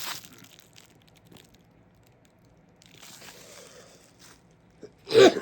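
Crinkling and rustling of plastic packaging being handled, followed near the end by a loud throat clearing.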